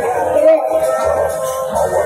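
Music played at high volume through a huge outdoor 'horeg' sound system: a wavering melodic line over a pulsing bass.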